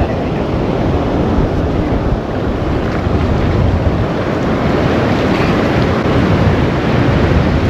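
Surf breaking on the shore with wind buffeting the microphone: a loud, steady rush heaviest in the low end.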